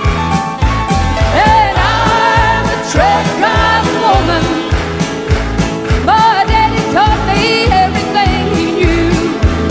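Background music: a song with a lead vocal over a steady beat.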